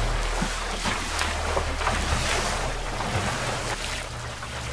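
Water splashing and slapping against the hull of a small wooden sailing dinghy under way, with wind buffeting the microphone.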